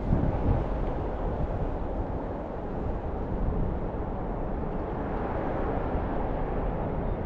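Strong wind buffeting the microphone: a low, uneven rumble with gusts, the loudest just after the start.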